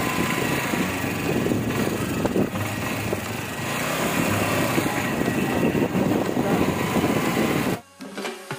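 Motorcycle engine running at a steady cruise, with road and wind noise over it. It cuts off sharply near the end, and music begins.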